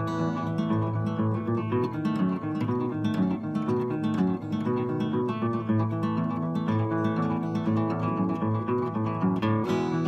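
Steel-string acoustic guitar played fingerstyle: a steady picked bass line under a melody on the higher strings.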